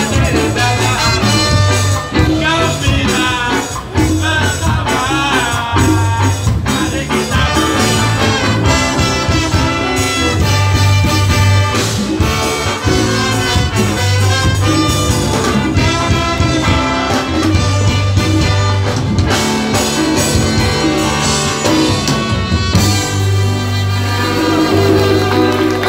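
Live ska band playing loudly through a PA: horns over electric guitars, bass and drums, in an instrumental passage.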